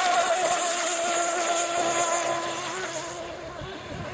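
Vintage OS 40 VRM two-stroke glow engine with a tuned pipe, driving a Dumas Hawk rigger hydro at full speed: a steady high-pitched engine whine. It fades somewhat over the last second as the boat moves away.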